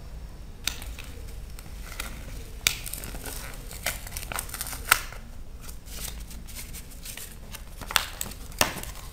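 Cardboard and paper packaging of a prepaid SIM card being handled and torn open by hand: crinkling and rustling broken by a few sharp snaps, the loudest near the middle and near the end.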